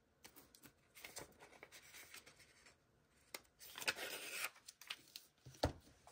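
Paper and sticker sheets rustling and scraping as they are handled, with a longer rustle past the middle, a few light clicks, and a knock near the end.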